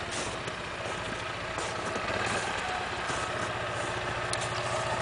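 ATV fitted with Tiger Trax track conversions, its engine running steadily at low speed as it crawls over packed snow, getting a little louder about two seconds in.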